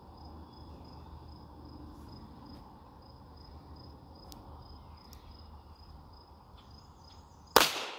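Insects chirp steadily in a fast pulsing trill while the shooter holds her aim. Near the end a single shot goes off from a CZ 75 P-01 9mm pistol.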